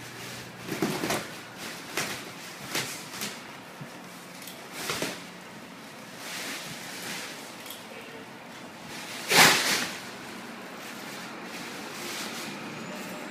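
Plastic wrapping of a vacuum-packed, rolled-up foam mattress being handled and opened: irregular crinkles, rustles and scrapes, with one louder noisy burst about nine and a half seconds in.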